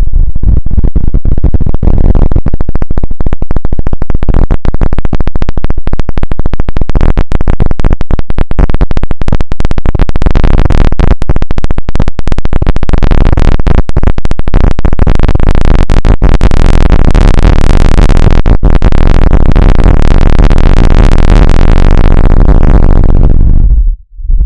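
Very loud, harsh electronic noise with a dense, rapid crackling texture, heaviest in the bass. Near the end it drops away abruptly, leaving a brief gap.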